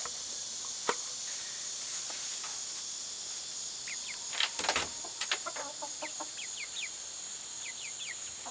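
Hens clucking and chirping softly, louder for a spell about halfway through, over a steady high insect drone.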